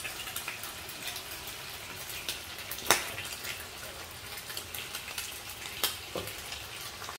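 Ham and an egg frying in skillets on a gas stove: a steady sizzle full of small crackling pops, with two sharper pops, one about three seconds in and one near six seconds.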